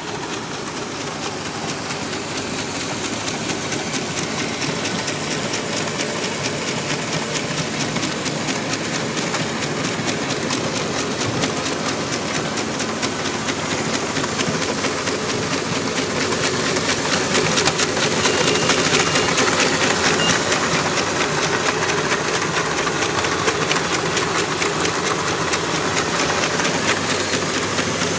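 Automatic 12 mm jumbo paper straw packing machine running: a steady mechanical clatter of rapid, even ticks, growing a little louder around the middle.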